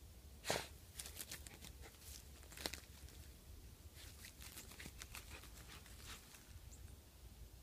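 Small dog snorting sharply into a mole trench about half a second in, and again more briefly near three seconds. Between the snorts come crackling and tearing of grass, dry leaves and roots as she digs and bites at the ground with her mouth.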